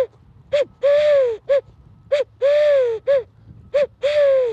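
Dove whistle blown to imitate a collared dove's three-note call: a short coo, a longer coo that rises and falls, then a short coo. The phrase repeats about three times, roughly one and a half seconds apart.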